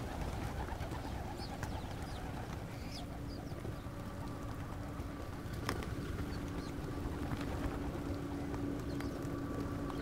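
A flock of pigeons cooing, with short high chirps of other birds here and there and one sharp click a little over halfway through. A faint steady hum runs underneath.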